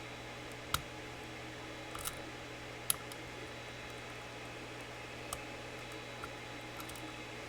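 A few sharp, sparse metal clicks from a lock pick and tension tool working the pin-in-pin stack of a Mul-T-Lock Classic Pro cylinder, heard over a steady low hum.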